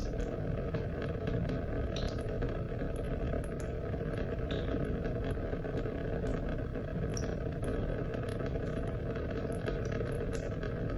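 Steady rainfall: a constant low rush of rain with scattered sharp ticks of individual drops.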